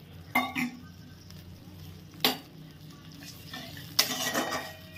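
A spatula knocking against a kadai a few times, then stirring and scraping through the cooked masala and water near the end, over a faint sizzle from the pan.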